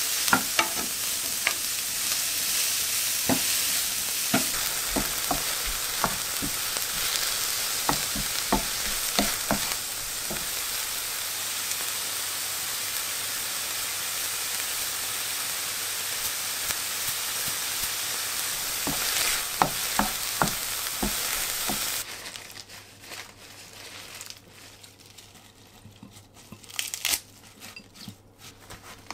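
Maitake and shimeji mushrooms with onion sizzling in a hot frying pan, stirred with a wooden spatula that clicks and scrapes against the pan. About 22 seconds in the sizzle cuts off, and quieter rustling of lettuce leaves being handled in a glass bowl follows.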